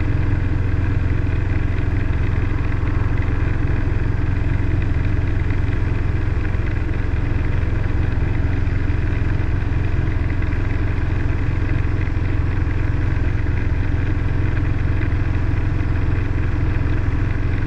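Robinson R22 helicopter's engine and rotor running steadily, heard from inside the cabin while it hover-taxis a short distance.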